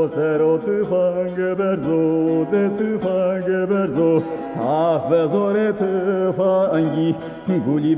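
Old recording of a Zazaki folk song: a male voice sings a wavering, ornamented melody over steady sustained instrumental tones. The sound is dull, with no high end, as on an old tape.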